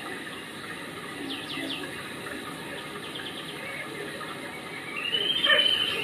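Steady rain falling and running off, with faint chirps about a second and a half in and a brief high-pitched call near the end.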